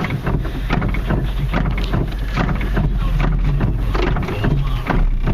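Steady low drone of a vehicle on the move, with many irregular light taps and knocks over it.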